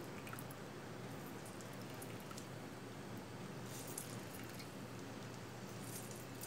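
Half a lemon squeezed by hand, faint squishing and juice dripping over a steady low hiss, with a few soft ticks about two-thirds of the way through.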